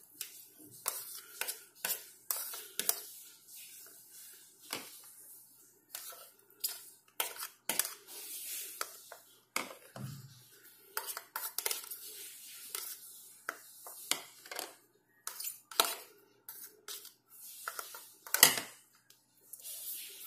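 Steel spoons scraping and tapping against small plastic bowls and a plate as chopped vegetables and salt are spooned into idli batter: irregular clicks and knocks throughout, with a louder knock near the end.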